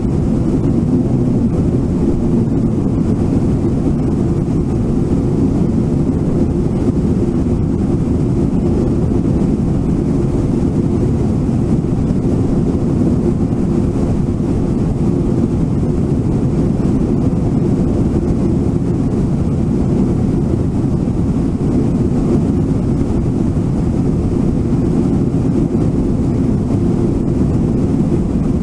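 Steady, low rush of the Brooks River running fast over rapids.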